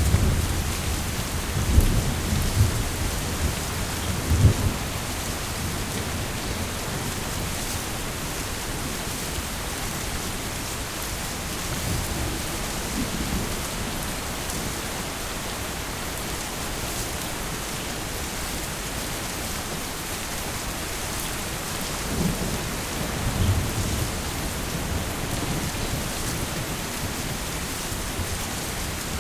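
Heavy rain falling steadily, with rolls of thunder rumbling at the start, once more faintly about twelve seconds in, and again about twenty-two seconds in.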